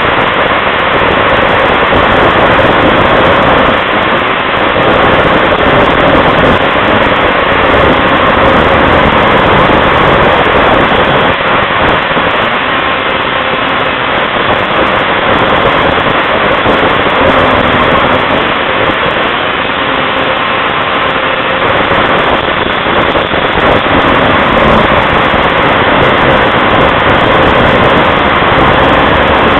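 Snowmobile engine running steadily at speed on the trail, mixed with heavy wind rush on the microphone.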